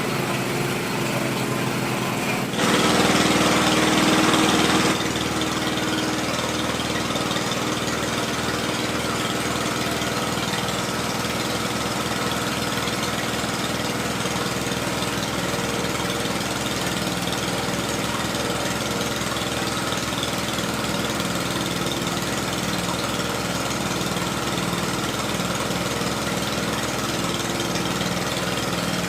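Small petrol engine of a well-drilling machine running steadily at a constant speed. About two and a half seconds in, a louder rushing noise joins it for a couple of seconds, then stops.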